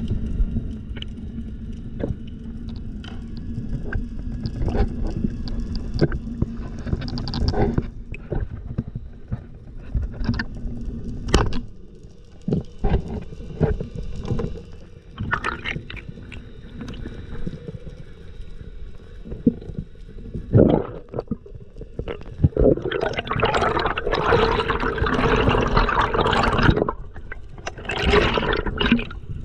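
Underwater sound picked up by a diver's camera: a low water rumble with scattered sharp clicks and knocks. About three-quarters of the way through comes a rush of air bubbles lasting a few seconds, with a shorter one near the end.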